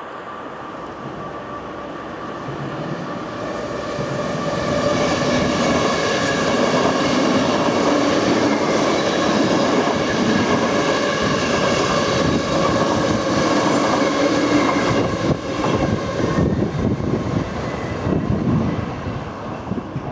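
Double-deck electric passenger train passing: rushing wheel and rail noise with a steady whine over it, growing louder over the first few seconds. About fifteen seconds in the whine drops away, there is a run of clicks from the wheels over rail joints, and the sound fades.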